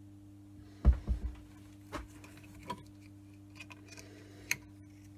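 Knocks and clicks of metal parts being handled while dismantling a Myford Super 7 lathe countershaft and clutch assembly: a heavy knock about a second in, a few lighter taps and small ticks, and a sharp click near the end, over a low steady hum.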